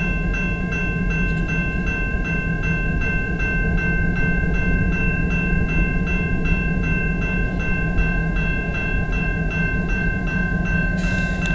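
Railroad crossing bell ringing in steady, even strokes about twice a second, over the low diesel rumble of two EMD GP38-2 locomotives.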